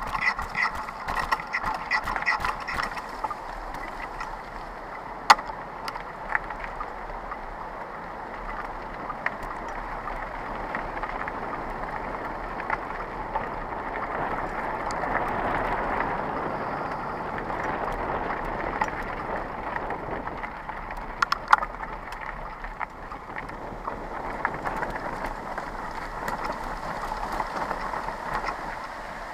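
Mountain bike riding over a gravel and dirt path: tyres rolling and crunching steadily, with the bike rattling and clicking over rough ground at the start and a couple of sharp knocks about five and twenty-one seconds in.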